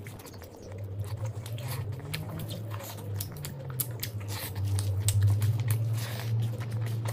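Close-up chewing and wet mouth smacking of a person eating a mouthful of mutton biryani by hand, with many short clicks, over a low hum.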